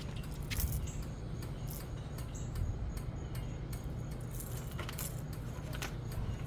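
Light metallic clicks and clinks, scattered and irregular, from handling the hammock stand's hardware while tightening it, over a steady low rumble.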